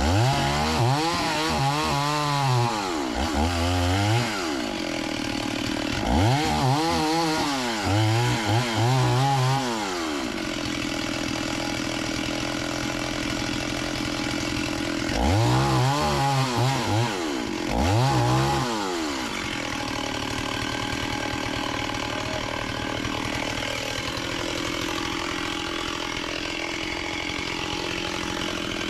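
Two-stroke chainsaw revving up and falling back in short repeated bursts, in three groups, settling to a steady run for the last part.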